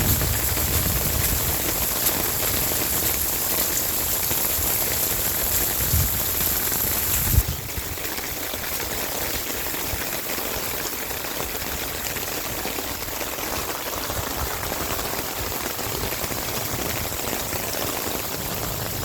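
Steady rain falling. About seven seconds in there is a single knock, and after it the rain sounds slightly quieter.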